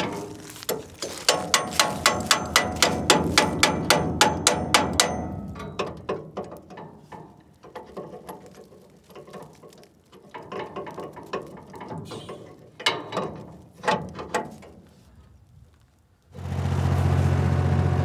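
A ratchet wrench clicking about four times a second on the V-belt tensioner pulley of a JF MS5 combine harvester, then scattered metal clinks and knocks of tool on pulley. Near the end the Fordson Super Dexta tractor's engine comes in abruptly, running steadily.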